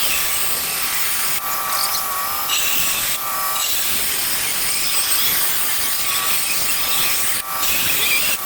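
Handheld power tool with a cutting blade slicing through a ceramic patio tile: the motor runs at a steady high pitch with gritty cutting noise over it, then starts winding down at the very end as the trigger is let go.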